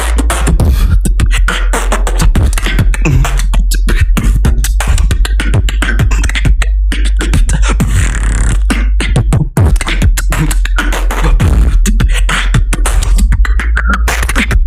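A boy beatboxing with a hand cupped at his mouth: a fast, loud, continuous run of percussive mouth sounds, with a brief break about nine and a half seconds in.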